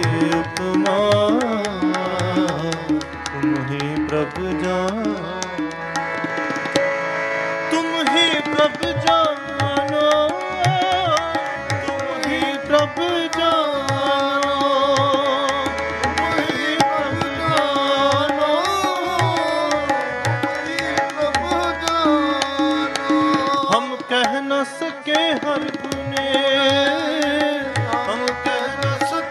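Sikh kirtan: a voice sings a long wordless melodic passage that slides and wavers over held harmonium notes, with tabla keeping a steady rhythm.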